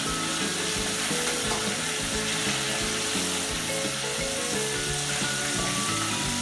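Battered black drum fillets deep-frying in a pot of hot oil: a steady sizzle, with background music underneath.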